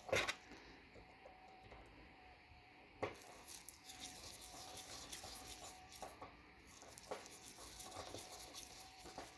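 Faint clicks and scraping of a small screwdriver and screws being worked into the casing of a laptop hard drive, with a sharper click at the very start and another about three seconds in.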